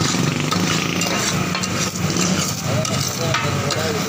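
Minced beef sizzling on a large flat tawa griddle while metal spatulas stir it, scraping and clacking against the hot surface several times.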